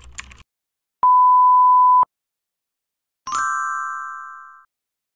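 A steady electronic beep held for about a second, then a single bright bell-like ding that fades out over about a second and a half, with dead silence between and after them.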